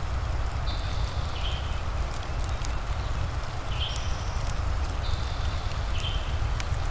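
Fireplace crackling over steady rain: a low rumble and even hiss with scattered sharp pops. Short high chirps recur every second or two.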